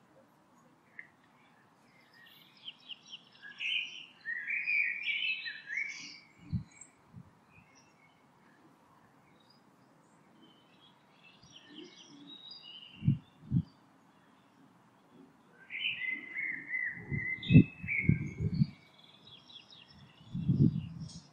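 Small songbirds chirping and singing in quick phrases, about two seconds in and again from about sixteen seconds in. Several dull low thumps are mixed in, the loudest near the end.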